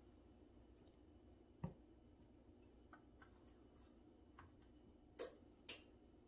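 Near silence with a faint steady hum, broken by a few light clicks and taps as hands work pie dough into a metal muffin tin: a sharper tap about a second and a half in, and two more near the end.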